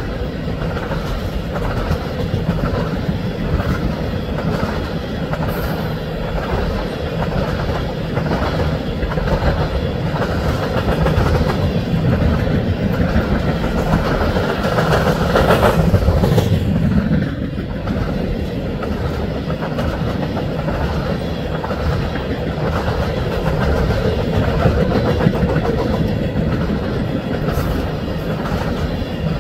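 Freight train tank cars rolling past: a steady rumble of steel wheels on rail with a repeating clickety-clack as the trucks cross the rail joints, briefly louder about halfway through.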